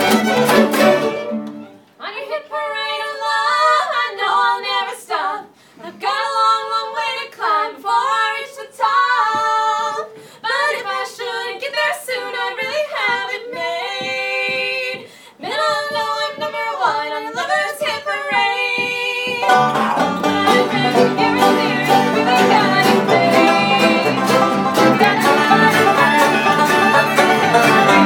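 Band music: the full band plays, drops after about a second to a sparse melody line with almost no bass, then the whole band comes back in loudly about twenty seconds in.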